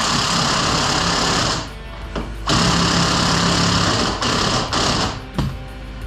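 Power impact wrench running in three bursts, the last one shorter, working a suspension nut.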